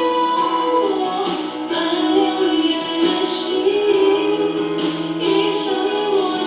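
A pop song with a woman's singing voice over instrumental backing, played back through a BenQ 65IZ7500 TV's built-in 8W+8W stereo speakers; the sung line holds long notes with vibrato.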